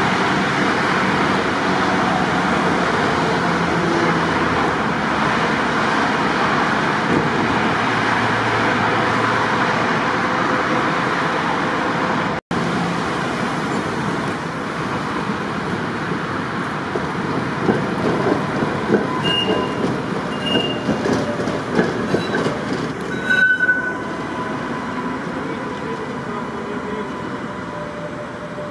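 Tatra T5C5 trams running past on street track: a steady rumble of steel wheels on rail, with a few short, high wheel squeals in the second half.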